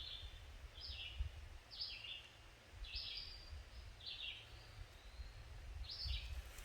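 A small songbird repeating a short, falling chirp about once a second, over a low, steady rumble.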